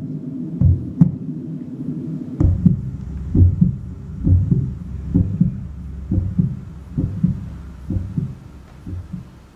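Stage soundtrack of a slow heartbeat-like pulse: low double thumps about once a second. A steady low hum comes in under it about two seconds in, and the pulse fades toward the end.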